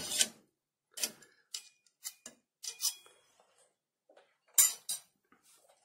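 A few light clicks and clinks, about six spread over several seconds, with silence between them; no motor is running.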